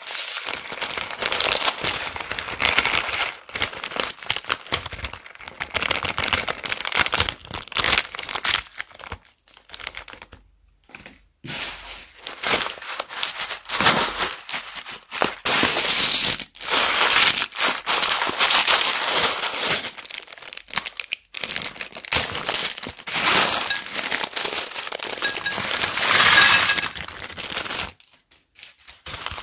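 Small plastic zip-lock bags of foam balls and plastic beads crinkling and crackling as they are squeezed and handled, with the beads shifting inside. It comes in stretches with short pauses, and a longer lull about ten seconds in.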